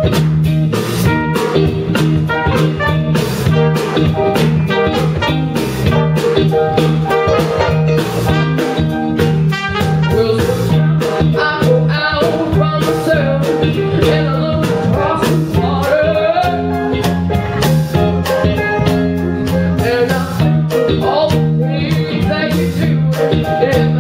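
Live band playing a song: a woman sings lead over electric guitar, bass guitar, drum kit and keyboard.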